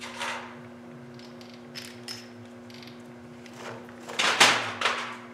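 Metal tools and engine parts clinking and clattering as they are handled, with a cluster of louder knocks about four seconds in, over a steady background hum.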